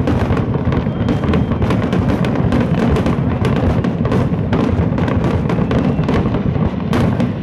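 Aerial fireworks shells bursting in a rapid, continuous barrage: many sharp cracks over a constant deep rumble of booms.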